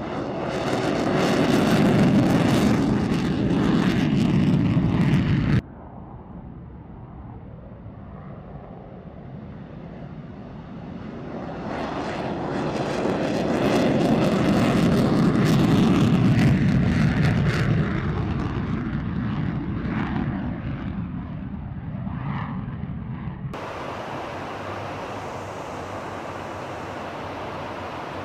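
Fighter jet taking off on afterburner, its engine noise loud and rising as it passes, then cut off suddenly about five seconds in. A second afterburner takeoff then builds, peaks and fades away, and near the end the sound cuts to a steady rushing hiss of airflow.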